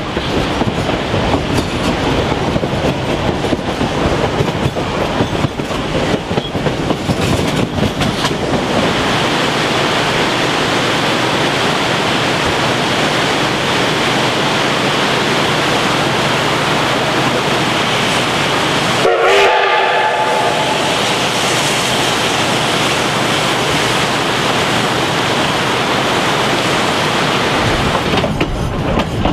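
Durango & Silverton narrow-gauge steam train running: steady noise of wheels and cars on the track, with a brief whistle blast about two-thirds of the way through.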